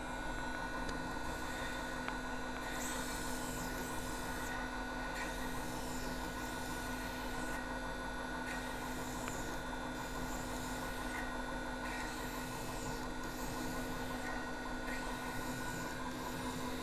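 Knife belt grinder running steadily with a 180-grit belt, a steel blade worked against it in repeated grinding passes that swell and fall back every second or two, polishing out the hollow grind.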